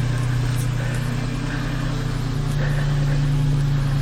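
Ford Transit van engine idling steadily, a low even hum; its pitch steps up slightly a little past halfway.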